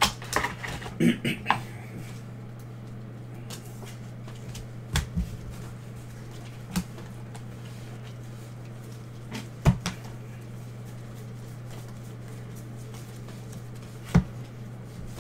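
Plastic card holders and top loaders clicking and knocking as they are handled and set down on a table, a handful of sharp clacks with the loudest about ten seconds in and near the end, over a steady low hum.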